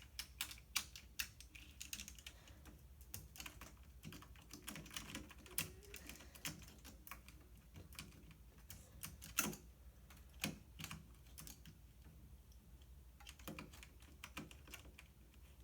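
Irregular small clicks and taps of a model train locomotive's wheels being set back onto the track rails by hand, a few taps louder than the rest.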